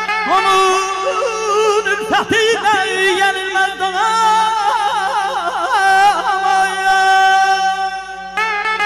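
A man singing Azerbaijani mugham into a microphone, with quick wavering ornaments on the notes and long held tones.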